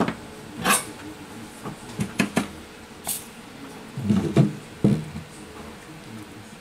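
Handling noise from a phone logic board masked with aluminium foil tape as it is moved about on the bench: a string of short clicks, crinkles and knocks, with the loudest, deeper knocks about four to five seconds in.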